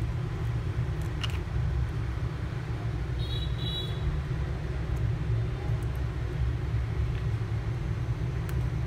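Steady low rumble of road traffic in the background, with a few faint clicks as the phone's plastic and metal parts are handled.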